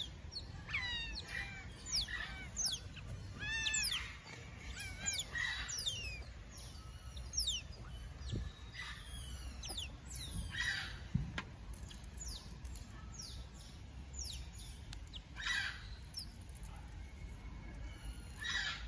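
Asian small-clawed otters chirping: short, high calls that sweep downward in pitch, several a second for the first few seconds, then sparser, with a few harsher squeals later on.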